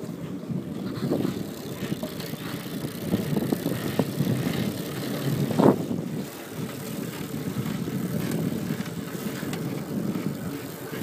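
Pedego electric trike being ridden on pavement: steady rolling and wind rush with a few short knocks, the sharpest a little over halfway through.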